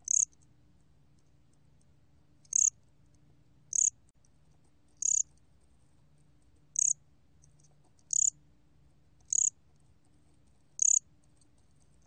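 Gom-gwitturami cricket (곰귀뚜라미) calling at 23 °C: eight short, high-pitched chirps, roughly one every second and a half, over a faint low hum.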